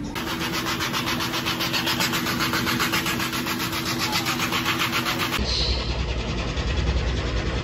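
AquaMassage dry hydromassage bed running: water jets spray against the underside of its cover in a fast pulsing hiss over a steady pump hum. About five seconds in, the hiss cuts off, leaving a low motor hum.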